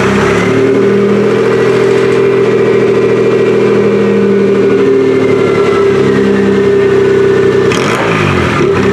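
Geo Metro engine running at a loud, steady idle just after starting, then revved briefly near the end.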